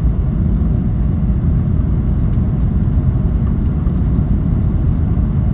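Passenger airliner during landing: a steady low rumble of engine and airflow noise with no distinct events.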